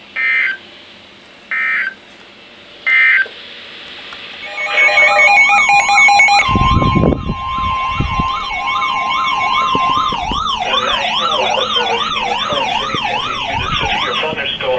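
Emergency Alert System tones: three short bursts of digital header data chirps about a second apart, then the alert's attention signal, a loud steady high tone layered with a fast warbling, siren-like tone, marking the start of a new severe weather warning.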